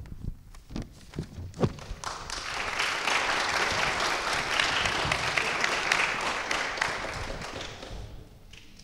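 Audience applauding: the clapping starts up about two seconds in, holds steady, and fades out near the end. A few dull thumps and taps come just before it.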